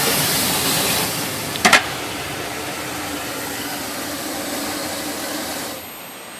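Steam hissing steadily from a live vertical fire-tube boiler, easing down about a second in and again near the end, with a single sharp knock about a second and a half in.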